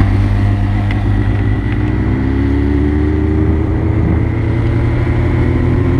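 Suzuki GSX-R sport bike's engine running on the move, heard from on board. Its pitch rises slowly from about two seconds in as the bike gathers speed.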